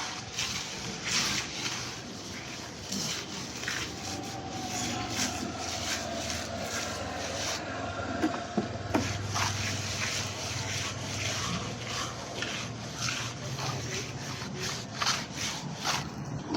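Irregular scraping strokes, one after another, over a faint low hum.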